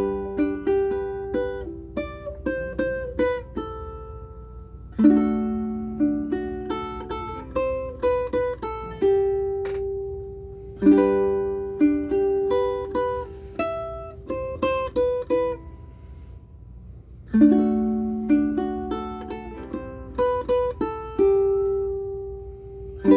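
aNueNue Green Bird ukulele with low G strings, fingerpicked: a short melodic phrase played four times over, each time opening with a strong pluck and closing on a longer held note.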